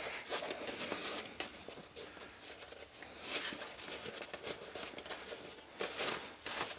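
Waxed canvas rustling and rubbing as paracord is pulled through a pouch's drawstring hem, with a few louder scrapes about halfway through and near the end.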